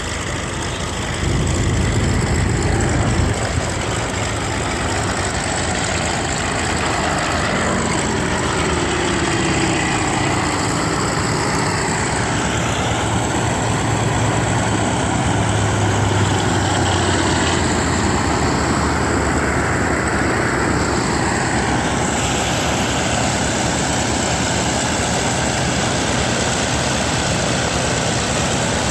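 F4U Corsair's radial piston engine running loudly and steadily. It gets louder about a second in, and its pitch drifts slowly up and down through the middle.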